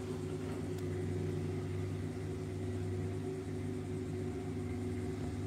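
Steady low machine hum made of several even tones, holding constant with no change in pitch or level.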